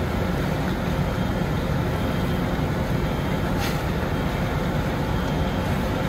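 Fire truck's engine running steadily, a low rumble under constant noise, as it powers the pump feeding the aerial ladder's water stream. A single brief click about three and a half seconds in.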